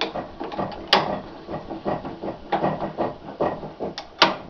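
Reed 134-1/2 R machinist's bench vise being worked by hand: the screw and sliding jaw give a run of irregular metallic clicks and scraping, with a sharp clank about a second in and another near the end.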